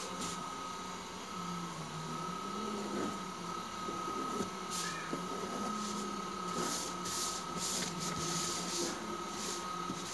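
Pencil on paper and a large paper sheet being smoothed by hand: short scratchy strokes, clustered in the second half, over a steady high whine and a low wavering hum.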